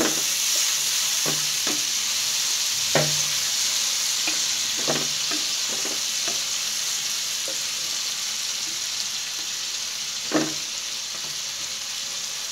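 A splash of water hitting hot oil, fried onions and spices in a nonstick pan: a loud sizzle that starts as the water goes in and slowly dies down. A spatula stirs and knocks against the pan now and then, most sharply about three seconds in and again near ten seconds.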